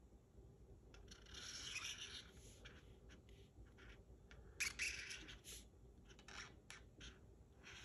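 Faint scratching of a felt-tip marker drawn across cardboard, in several separate strokes: a longer one about a second in, then a run of short ones past the middle.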